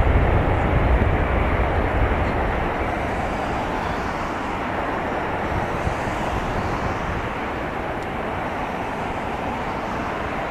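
Jet noise from a Boeing 757-200 on landing approach, its Pratt & Whitney PW2037 engines receding. A low rumble dies away over the first couple of seconds, leaving a steady, duller wash of engine noise.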